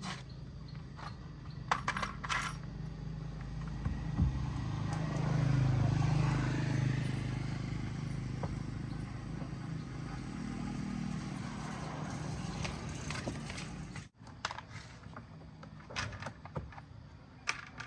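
A motor running with a steady low hum that swells for a few seconds and then stops abruptly, with a few metallic clinks.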